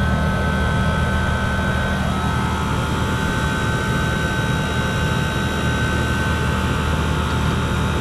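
Rooftop refrigeration condensing units running: compressors and condenser fans make a steady mechanical hum, with a few constant whining tones over the drone.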